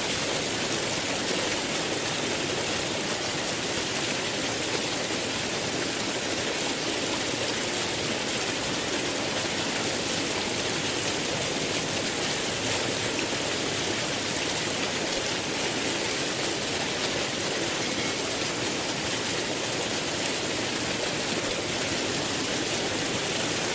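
Steady rush of flowing water, an even unbroken hiss with no let-up.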